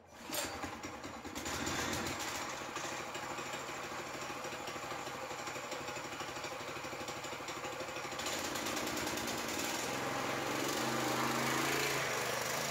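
Go-kart's Harbor Freight Predator 212cc single-cylinder engine running steadily. It gets a little louder and higher in pitch near the end as the kart pulls away.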